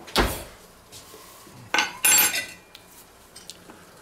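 A fork clattering against a stainless steel mixing bowl: a sharp knock just after the start, then a clatter with brief metallic ringing about two seconds in.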